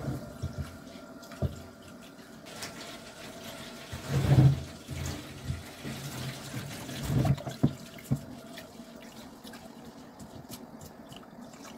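Tap water running into a metal pot as rice is rinsed in it, with louder splashing about four seconds in and again about seven seconds in, and a few clanks of the pot.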